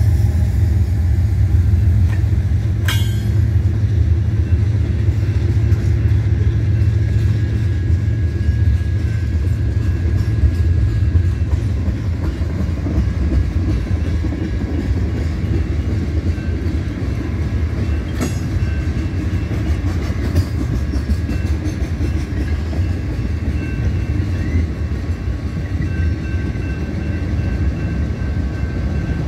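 Freight train cars rolling past: a steady low rumble of steel wheels on rail, with a sharp clank about three seconds in and another about eighteen seconds in.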